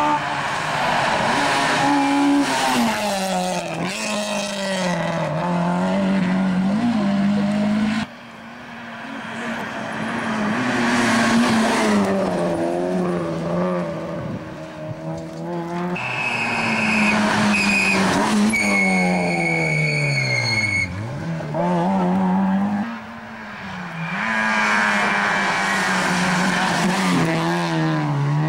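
Rally car engines driven hard, one car after another, each revving up and dropping back through gear changes. Midway there is a high, steady tyre squeal lasting a few seconds.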